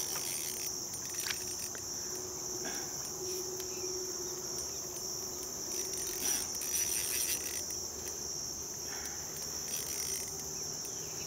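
Steady, high-pitched chorus of insects buzzing continuously in the marsh, with a few brief clicks and rustles about a second in and again around six to seven seconds in.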